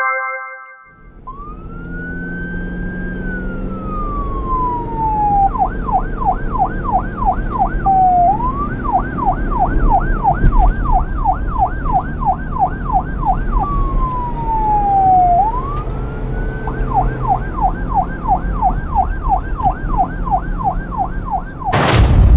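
Electronic siren alternating between a slow rising-and-falling wail and a fast yelp of about three or four sweeps a second, over a low rumbling engine-like noise. A loud sudden burst near the end.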